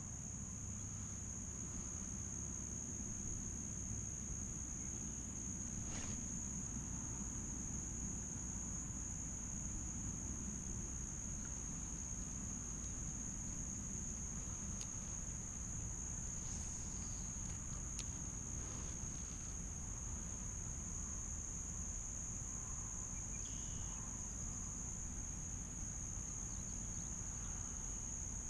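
Steady high-pitched drone of insects in the marsh grass, held without a break, over a low rumble. A couple of faint clicks stand out, about six seconds in and again near eighteen seconds.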